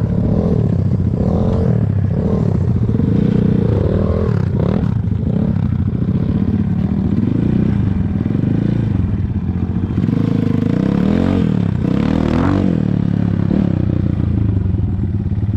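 Mikilon MZK 250 four-stroke enduro motorcycle engine revving, its pitch rising and falling repeatedly as the throttle is worked, with a few short knocks about five and twelve seconds in.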